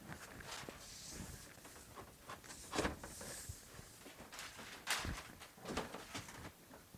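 Scattered knocks, taps and scraping from a shower wall panel being handled and pushed into place during a test fit. Two sharper knocks come about three and five seconds in.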